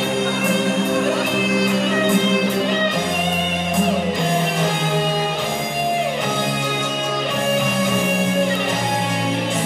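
Music with guitar playing over held bass notes that change every second or two, with a few sliding guitar notes.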